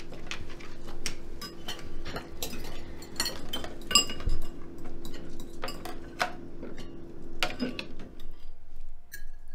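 Metal spoons and forks clinking and scraping against ceramic bowls and plates: many small, irregular clinks with a brief ring. A low steady hum sits under them and stops about eight seconds in.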